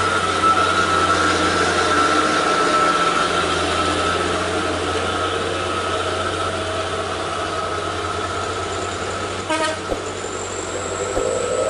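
Heavy truck's engine running under load with a steady whine as it climbs and turns a steep wet hairpin. A short horn toot comes about nine and a half seconds in.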